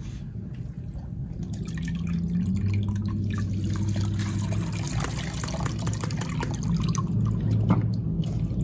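Soaking water from brown rice pouring through a stainless steel mesh strainer and splashing into a plastic bowl below, a steady stream with drips that gets louder about two seconds in.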